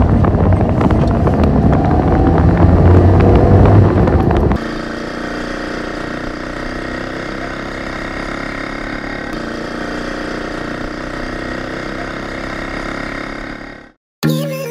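Car engine running on the road, loud, its pitch rising slightly as it pulls. About four and a half seconds in it cuts to a quieter, steady engine drone from a motorcycle-sidecar tricycle, which stops abruptly near the end.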